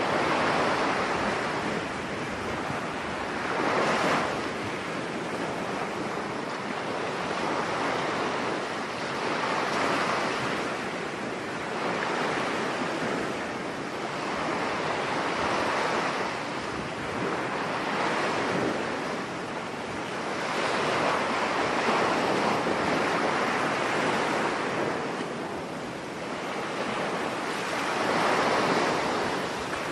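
Storm surf breaking on a beach, one wave surging in after another every few seconds, with a steady rush of wind and water between them.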